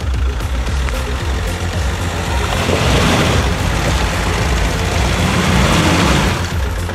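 Off-road 4x4 engine running hard under load, with a loud rushing noise from about two and a half seconds in until near the end.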